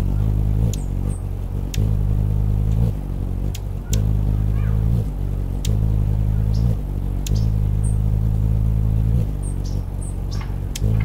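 Anna's hummingbird hovering, its wingbeats making a low buzzing hum that stops and starts in stretches of a second or two and steps slightly in pitch, the wingbeat alternating between about 50 and 60 beats a second. A few short, high ticks and chips sound over it.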